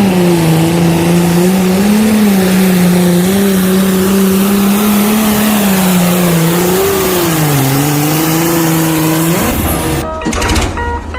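A vehicle engine running at a steady, gently wavering pitch over a loud hiss. About ten seconds in it rises briefly and cuts off, and music with a beat starts.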